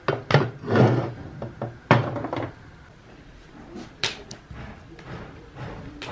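Several irregular knocks and thuds, the loudest in the first two seconds, then a sharp click about four seconds in and fainter knocks after it.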